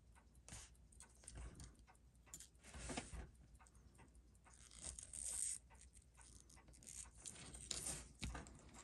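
Faint, irregular small clicks and brief scratchy rustles of handling, with no steady rhythm.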